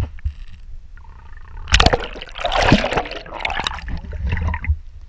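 Sea water splashing and sloshing against a camera held at the water's surface, with a loud stretch of splashing from about two seconds in until near the end.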